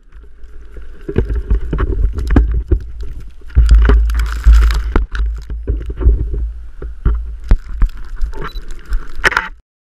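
Blizzard wind buffeting a small camera's microphone: a heavy, uneven rumble with scattered crunches and knocks, loudest about halfway through, cutting off abruptly just before the end.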